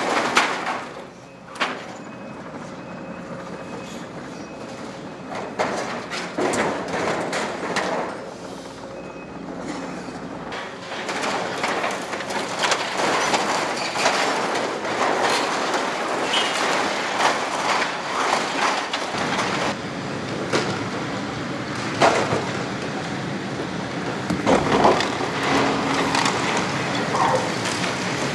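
Demolition excavator's hydraulic grab tearing a building apart: corrugated metal cladding crumpling and scraping, with debris clattering and repeated sharp crashes and cracks.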